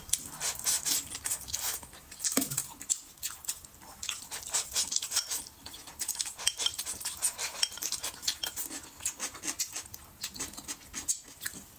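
Close-miked eating sounds: wet chewing and lip-smacking of braised meat and vegetables, with wooden chopsticks clicking and scraping against a ceramic bowl. Rapid small clicks and smacks go on without a break.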